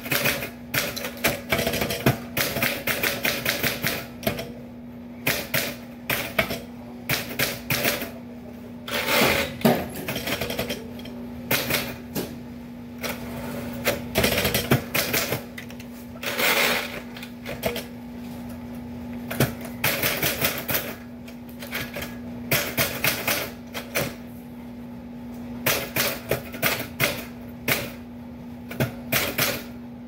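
Typewriter keys struck in quick runs of sharp clicks, broken by short pauses, over a steady low hum.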